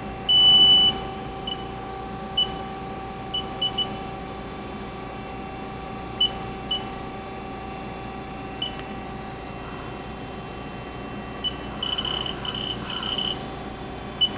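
Haas ST-30 CNC lathe control beeping at one pitch over the steady hum of the idling machine, while the operator keys in a gear change with the spindle stopped. There is one longer, loud beep about half a second in, then scattered short beeps and a quick run of them near the end.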